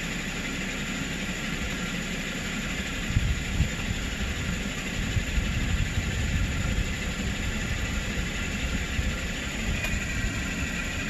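2010 Toyota Corolla S four-cylinder engine idling steadily, a low rumble with a few irregular low thumps.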